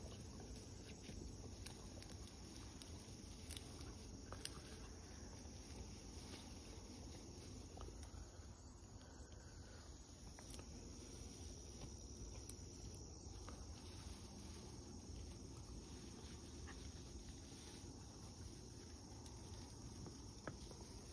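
Quiet field ambience: a faint low wind rumble with scattered small clicks and rustles in dense brush, and faint insects.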